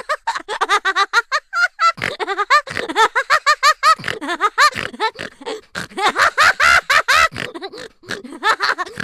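Cartoon vocal sound effect: a long run of rapid, short, high-pitched voiced calls, several a second, each bending up and down in pitch, with a brief gap about two seconds in.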